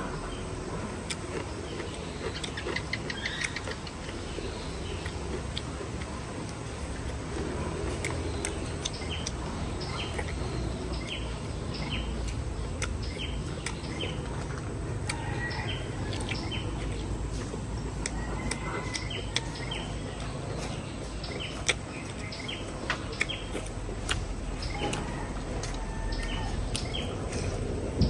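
Chewing and crunching of roast pork belly with crispy skin, with frequent sharp crackles. Small birds chirp now and then in the background.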